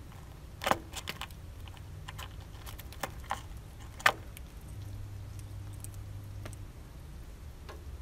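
Eurasian bullfinch pecking at sunflower seeds in a feeder tray: a scatter of sharp, irregular clicks and taps, the loudest just under a second in and about four seconds in, over a low steady hum.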